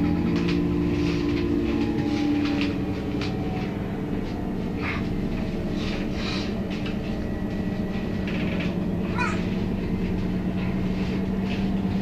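City bus engine idling at a stop, a steady low hum with clicks and rattles over it and a brief squeal about nine seconds in.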